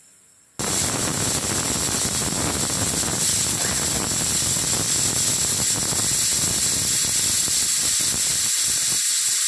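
Aluminium stovetop pressure cooker whistling: a loud, steady jet of steam hissing out past the weight valve, starting about half a second in. It is the sign that the cooker has reached full pressure, one of the whistles counted to time the dal.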